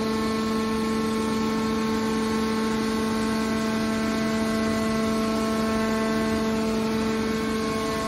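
Hydraulic power unit of a scrap-metal baler running: the electric motor and hydraulic pump give a steady, even-pitched whine with a hiss beneath it, as the hydraulic cylinders fold the baler's lid shut over the press box.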